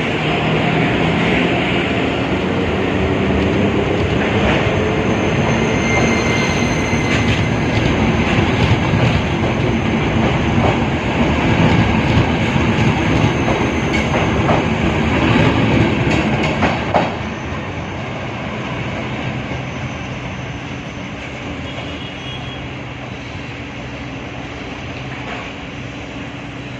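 A train running past close by, its wheels clattering over the rail joints, with a brief high squeal about six seconds in. The noise drops off suddenly about 17 seconds in, leaving a quieter steady hum.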